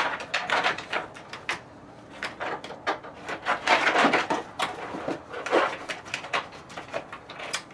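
Handling noise: small clicks, taps and rustles as a battery tender pigtail lead and its ring terminals are worked around a snowmobile battery and against the plastic body panel, with a longer rustle about four seconds in.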